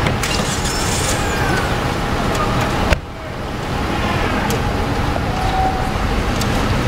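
Street traffic with tyres hissing on wet pavement and faint distant voices. About three seconds in, a single sharp knock, fitting a car door being shut.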